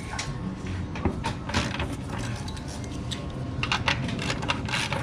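Irregular metallic clicks and clinks of hand tools working on bolts under a car during transmission removal, in several quick clusters over a low steady hum.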